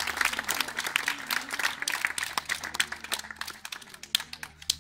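A small crowd applauding, fast overlapping hand claps that thin out and die away near the end.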